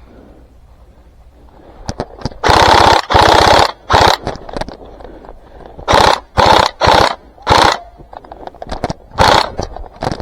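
Airsoft gun fired close by in several short bursts of rapid fire, each a fast rattle of shots. The two longest bursts come about three seconds in and are followed by shorter bursts.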